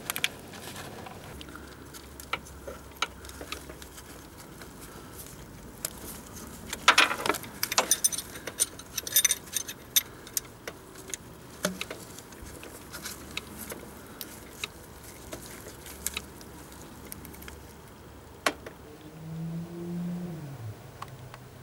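Metal hand tools clicking and clinking against the timing-belt tensioner and engine block as the belt is tensioned with a lever and spanner, with a busier run of ringing metallic clinks a few seconds in. A brief low hum falls in pitch near the end.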